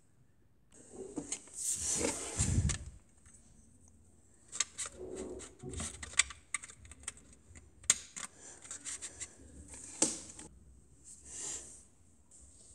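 Small plastic LEGO pieces and minifigures clicking and clattering as they are handled and set onto a baseplate, with a louder rubbing rustle about two seconds in.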